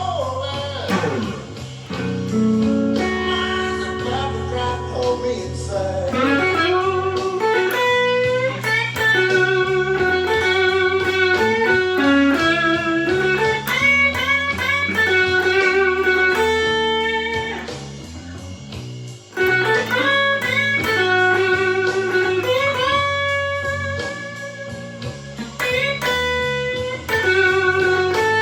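Overdriven Stratocaster electric guitar through a Fender Blues Junior tube amp and a TS9 Tube Screamer, playing a slow blues lead full of string bends and vibrato over a backing track with bass.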